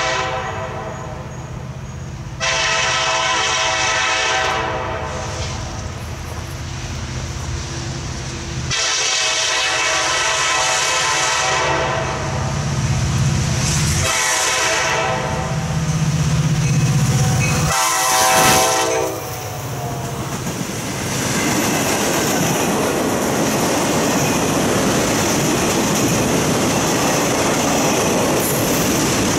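KCS SD70MAC diesel locomotive sounding its horn in a series of blasts, some long and some short, as it approaches. Its engine rumble swells as it passes. From about two-thirds of the way in, a rail train's flatcars roll by with steady wheel clatter.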